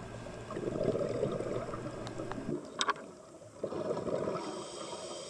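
Muffled underwater sound picked up through a camera housing: gurgling bubbles from a scuba diver's exhaled breath. The bubbling stops briefly about three seconds in, then starts again.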